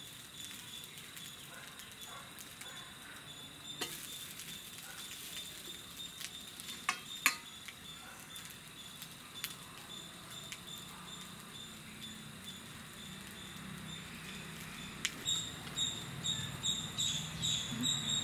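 A roti frying quietly in oil on a cast-iron tawa over a wood fire, with a soft steady sizzle and a few sharp clicks about seven seconds in. Near the end a high chirping starts, repeating several times a second.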